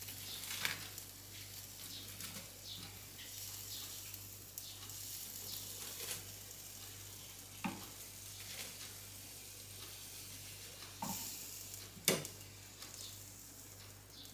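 A pot of carrots blanching on the hob, bubbling and hissing faintly and steadily. A few sharp knocks of a knife against a cutting board as brownies are cut, the loudest about twelve seconds in.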